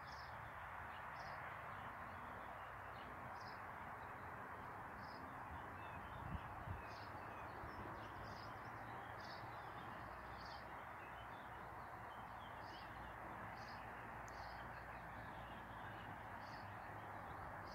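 Continuous distant road-traffic noise from the N702 Buitenring ring road, a steady even hum of passing vehicles. Over it a bird calls repeatedly in short high notes.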